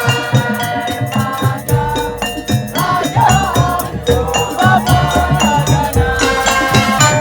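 Madurese tong-tong ensemble music: drums and pitched percussion struck in a fast, even rhythm with a rattle keeping time, and a wavering lead melody rising over it from about three seconds in.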